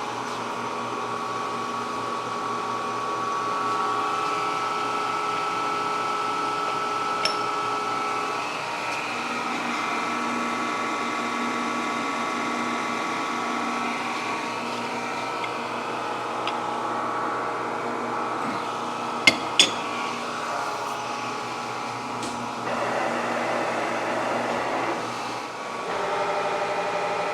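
Steady machine hum with several held tones. A few sharp metallic clicks sound over it, one about 7 seconds in and two close together about 19 seconds in.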